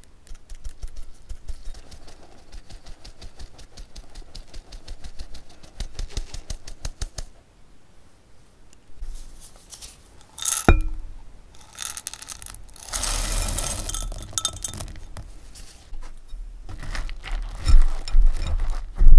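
Stainless mesh sieve shaken over a glass bowl for several seconds, its rim ticking rapidly as flour falls through. Then comes a single sharp clink, a longer rattle of chocolate chunks tipped into the bowl, and a spatula starting to stir the dry mix near the end.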